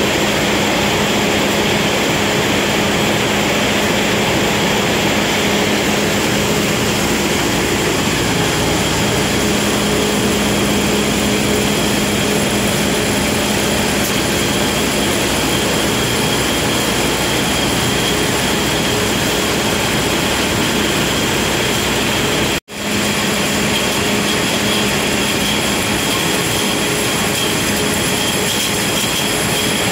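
Steady machinery noise of an aluminium can production line: a constant broad whir with a few held tones from the running machines and conveyors, broken by a momentary drop-out about 23 seconds in.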